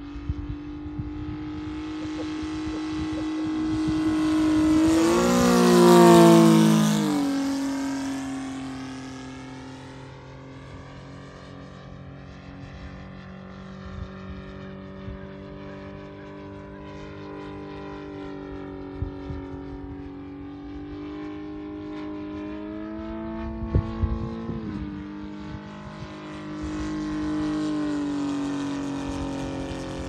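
Saito FG-90R3 three-cylinder four-stroke radial petrol engine of a radio-controlled F4U Corsair model in flight. It swells to a loud fly-by about six seconds in, its pitch dropping as it passes, and makes a second, quieter pass with a falling pitch later on.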